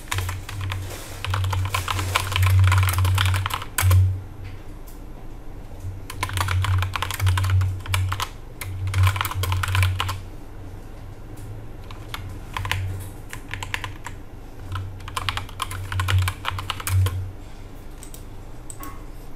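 Typing on a computer keyboard: several bursts of rapid keystrokes with short pauses between them.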